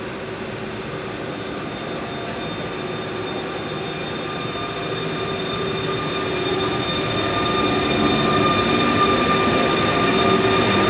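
EU160 (Newag Griffin) electric locomotive pulling a passenger train out and passing close by, a whine of several steady tones over the running noise, growing louder as it draws near.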